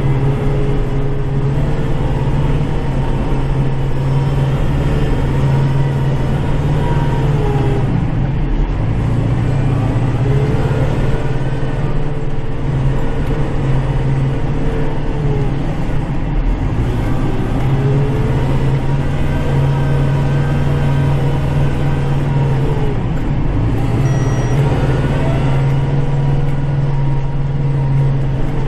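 Kubota tractor's diesel engine running steadily under load while plowing snow, its pitch dropping and then picking back up every seven or eight seconds.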